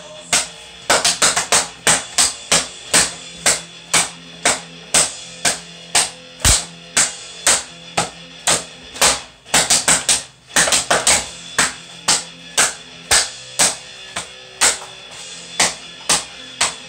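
Drumsticks striking cardboard paper towel rolls used as a makeshift drum kit: a steady beat of sharp taps about two a second, with quicker fills near the start and again about ten seconds in.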